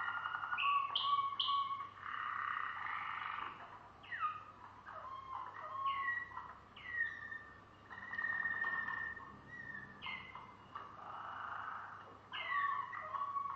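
Malinois Waterslager canary singing a continuous run of clear whistled phrases: held notes, repeated falling glides and quick rolling trills, with short breaks between phrases.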